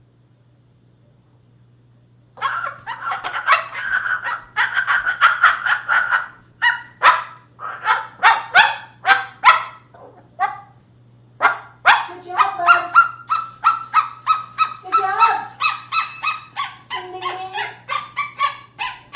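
Moluccan cockatoo imitating a dog's bark: long runs of quick, repeated barking calls that start a couple of seconds in and pause briefly a little after the middle.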